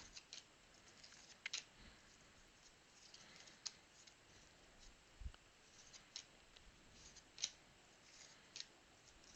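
Faint clicks and soft scraping of trading cards being handled and flipped one by one, a few sharp clicks spaced a second or two apart.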